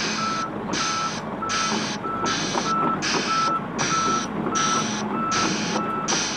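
Travel alarm on a Volvo ECR145EL hi-rail excavator beeping steadily about one and a half times a second, with a hissing pulse alongside each beep, as the machine tracks along a flatbed trailer. Its diesel engine runs underneath.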